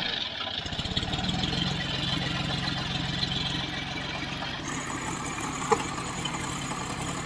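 John Deere 5105 tractor's three-cylinder diesel engine running steadily at low speed, with an even engine beat. One short sharp click about two-thirds of the way through.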